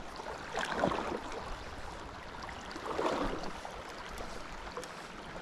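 Small mountain creek running over a shallow riffle, a steady rush of water. Two louder swishes stand out, about a second in and about three seconds in.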